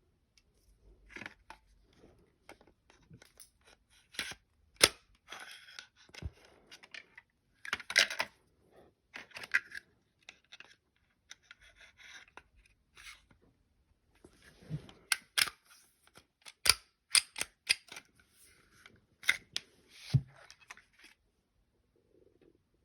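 Glock 29 pistol parts being handled during takedown or reassembly: irregular sharp clicks and knocks of metal and polymer parts, with short sliding scrapes between them.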